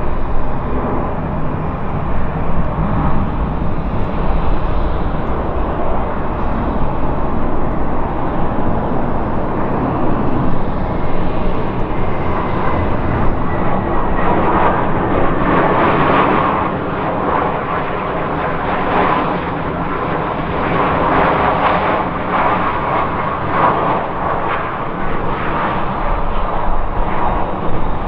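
Delta CRJ regional jet's rear-mounted turbofan engines heard during landing: a continuous jet rush over a low rumble, growing stronger and rougher about halfway through as the jet rolls out on the runway, with a faint falling whine just before.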